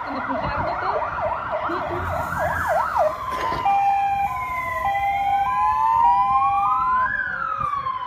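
Sirens of arriving emergency vehicles, a fire engine and an ambulance: a fast yelping siren for about the first three seconds, then a two-tone hi-lo siren together with a slower wail that rises and falls.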